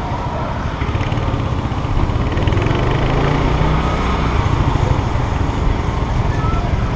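Small motorbike engine running as it rides through city traffic, with the steady hum of the motorbikes and tuk-tuks around it.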